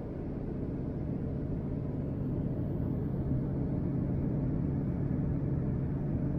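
Steady airliner cabin noise in a Boeing 787 in flight: a continuous low rumble and hiss of engines and airflow. It builds up over the first second after a cut.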